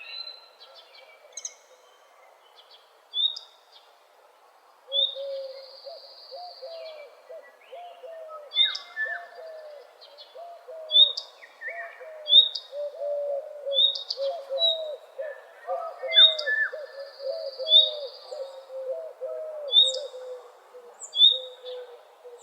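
Several birds singing together in a morning chorus. One bird gives a low call of quickly repeated notes that runs on from about five seconds in. Over it, another bird gives sharp high chirps every second or so, and other shorter songs join in.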